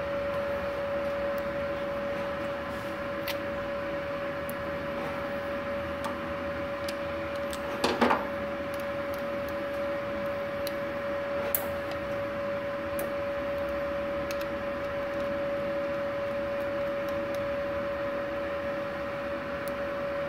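Steady hum of a switched-on Multipro MIG 200G SP inverter welding machine, with a few small metallic clicks and one brief louder clatter about eight seconds in as the torch's contact tip and nozzle are handled.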